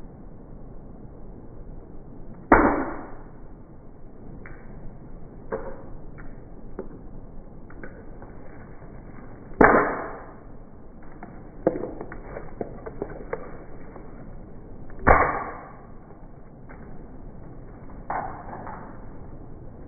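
Sledgehammer blows smashing objects inside a bag: three heavy strikes several seconds apart, with lighter knocks and rattling between them.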